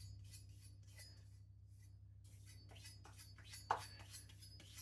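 Faint, light scratching strokes of a freshly sharpened knife edge being drawn across a surface to feel for a leftover burr, with one slightly louder scrape near the end, over a low steady hum.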